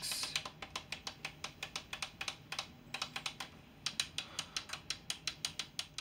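Typing on a computer keyboard: a quick, irregular run of key clicks, several a second, with a short break about halfway through.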